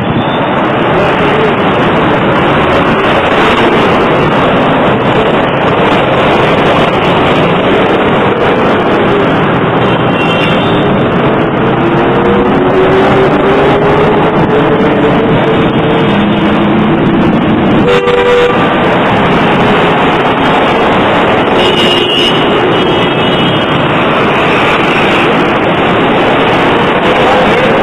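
Loud city street traffic: buses and cars running past with engine drone and a few short horn toots.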